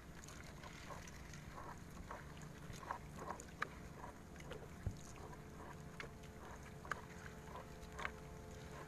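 Faint steady hum of a boat engine running, with scattered light knocks and clicks through it.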